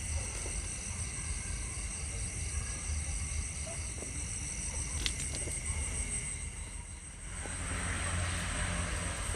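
Outdoor ambience of insects trilling steadily at a high pitch over a constant low rumble, with a single click about halfway through and a brief rustle near the end.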